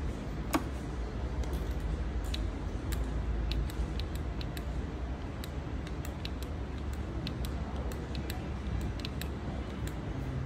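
Light, irregular clicks of a Harley-Davidson Road King's handlebar turn-signal switches being pressed over and over, entering the digits of the security PIN, over a steady low rumble.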